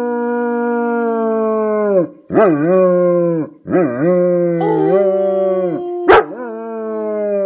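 An adult German Shepherd howling at close range: about four long, steady howls with short breaks between them, each swooping at the start and sliding down in pitch at the end.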